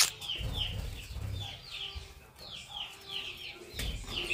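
Small caged birds chirping: a steady run of short, falling chirps, about three a second, with a couple of low rumbles underneath.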